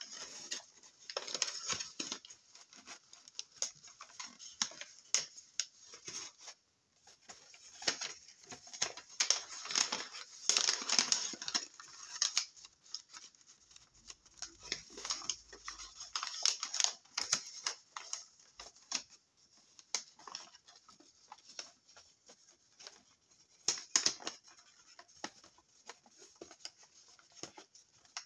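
A large sheet of paper rustling and crinkling as hands fold and crease it into an origami figure, in uneven bursts of crackle. The rustling is densest around ten to twelve seconds in, and a sharp crinkle comes near the end.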